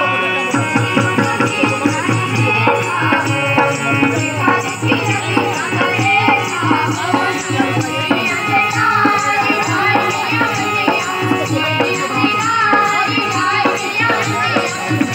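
Indian folk dance music with a steady, fast drum beat under a melody.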